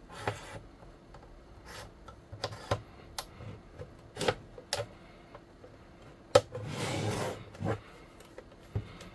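A Unitra Eltra Tola R-613 portable radio being handled: scattered clicks and knocks from its plastic case and telescopic antenna. A sharp knock about six seconds in is followed by a second of rubbing as the radio is turned over.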